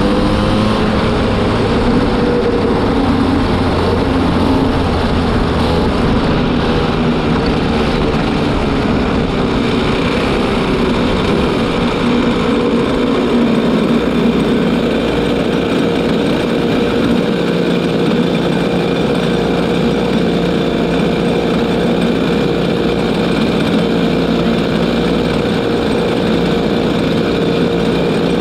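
Racing kart's newly fitted engine being run in, heard close up from on board. Its pitch rises and falls in the first half, then holds steady from about halfway through as the kart slows and comes to rest.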